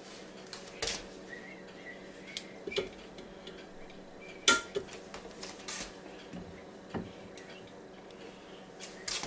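Metal kitchen tongs clacking against the Ninja Foodi's metal air-crisp basket and a plate as two steaks are lifted in: a handful of light, irregular clicks and knocks, the loudest about halfway through.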